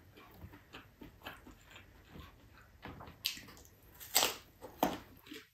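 Close mouth sounds of eating by hand: soft lip smacks and chewing, then several louder wet smacks and bites in the second half as a soft yellow fruit slice is bitten and chewed.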